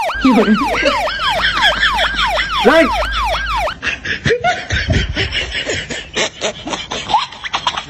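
Several people imitating a police siren with their voices through cupped hands: overlapping wee-oo wails rising and falling about three times a second. The wailing stops about four seconds in and gives way to scuffling footsteps as they run off over rubble.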